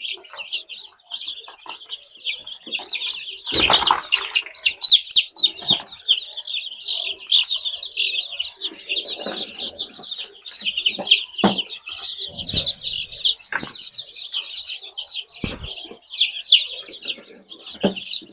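Many young chicks peeping continuously in a dense, high chorus. A loud rustle comes about four seconds in, and a few dull knocks follow later.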